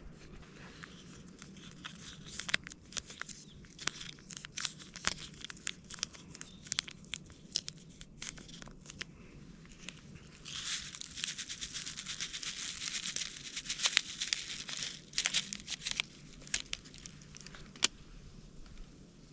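Plastic food packaging being handled and torn open: crinkling and tearing with many sharp clicks, growing denser for a few seconds just past the middle.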